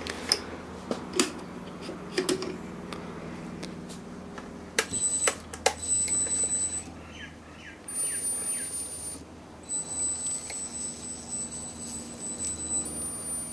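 Small lathe running on a variable frequency drive: a steady motor hum with a high-pitched whine from the drive that comes in about five seconds in and breaks off and returns a few times, with scattered sharp clicks and knocks.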